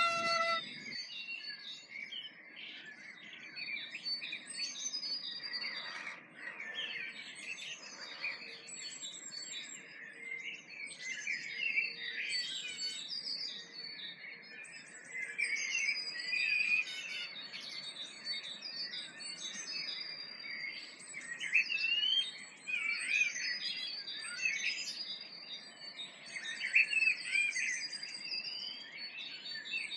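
Dawn chorus of several songbirds singing at once: quick high repeated chirps and trills over lower warbling phrases, overlapping throughout.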